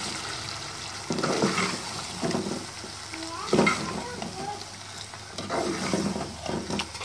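Chicken curry with freshly added yogurt sizzling in a metal pot while a steel ladle stirs it, mixing in the yogurt with irregular stirring and scraping noises over a steady frying hiss.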